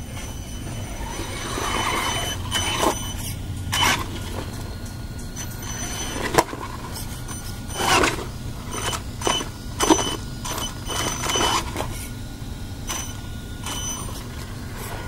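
Brushless electric motor of a 1/16-scale Traxxas Summit RC truck whining in short throttle bursts as it drives past close by, with tyre and chassis clatter. A faint steady high whine runs underneath.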